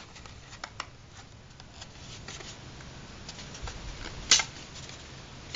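Light rustling and small clicks as a thin, knife-scored white sheet is flexed in the hands, then one sharp snap a little after four seconds in as a piece breaks off along the score line.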